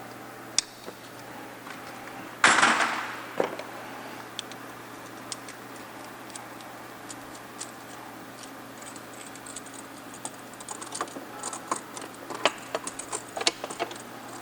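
Hand tools and small metal parts clicking and clattering during engine-bay work, with one short, louder burst of noise about two and a half seconds in and a quick run of irregular clicks near the end.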